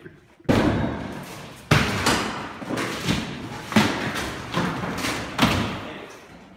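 Drywall being smashed in: about half a dozen heavy blows roughly a second apart, each a sudden crash that trails off.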